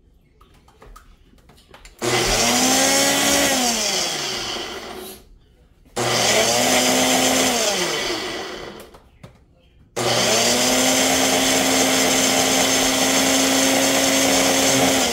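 Ninja blender motor pulsed three times, blending mint and coriander chutney with yogurt in the single-serve cup. It starts abruptly about two seconds in, runs about two seconds and winds down with a falling whine, starts again about six seconds in for another short run, then runs steadily for about five seconds near the end.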